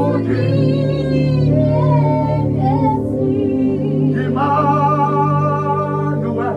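Worship singing: a voice holding long, wavering sung notes over a steady sustained keyboard pad.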